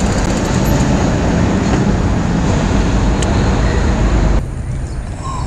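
Steady rumbling wind and rolling noise on the bike-mounted camera's microphone as the mountain bike is ridden. It cuts off suddenly about four seconds in, leaving a quieter background.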